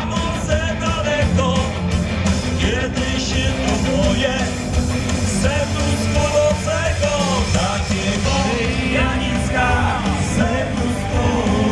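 Live rock music through a loud outdoor PA: a man singing over a band with a steady beat of drums and bass.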